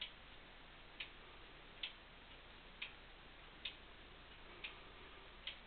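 Howard Miller triple-chime grandfather clock ticking: the pendulum escapement gives a sharp tick about once a second, seven in all. The gaps alternate slightly long and short.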